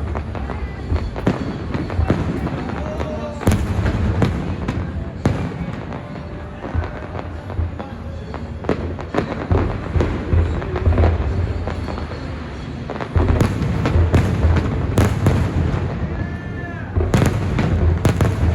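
Aerial fireworks bursting one after another: sharp bangs and deep booms over a constant rumble, coming thickest a few seconds in and again near the end.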